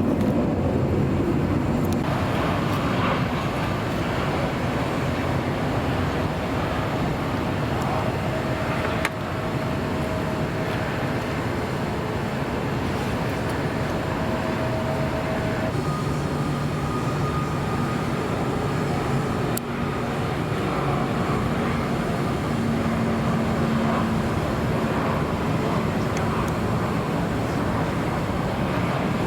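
Steady roar of jet airliner engines mixed with road traffic, with a faint steady whine that jumps higher about halfway through.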